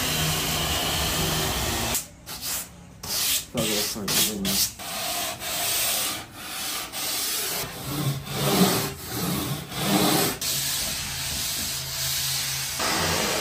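Surfboard foam blank being sanded by hand with a sanding block and sandpaper: a run of rasping back-and-forth strokes of uneven length, about one a second. A steady background noise runs for the first couple of seconds and comes back near the end.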